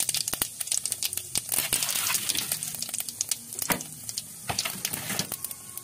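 Cumin and fennel seeds spluttering in hot oil in a kadai for a tempering: irregular sharp pops and crackles over a sizzle, thinning out near the end.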